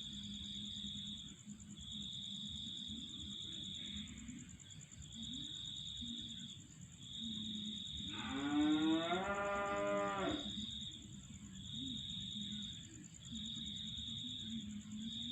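One long, loud pitched animal call lasting about two and a half seconds, starting about eight seconds in, over a steady high buzzing and repeated shorter high trills that come and go about once a second.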